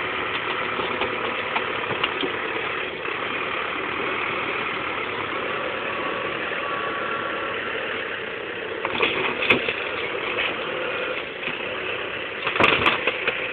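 New Holland TD5050 tractor's diesel engine running steadily while its loader grapple crushes a car, with two louder noisy bursts, one about nine seconds in and another near the end.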